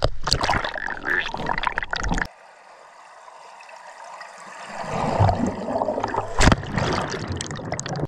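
Mountain stream water rushing and splashing, loud at first, cutting sharply to a quieter flow about two seconds in, then swelling loud again, with a single sharp knock near the end.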